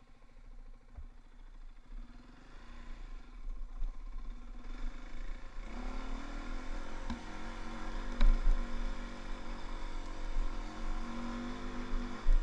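Dirt bike engine running at low revs, growing louder over the first several seconds as the bike gets moving, with a few sharp knocks along the way.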